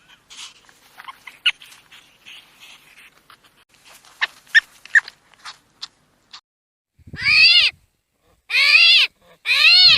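An animal bleating loudly three times near the end, each call rising and falling in pitch, after several seconds of faint short high squeaks and chirps.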